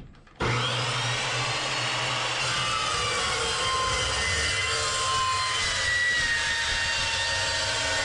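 Metal-cutting chop saw cutting through steel stock: a steady loud grinding whine that starts suddenly about half a second in, its pitch wavering as the blade bites.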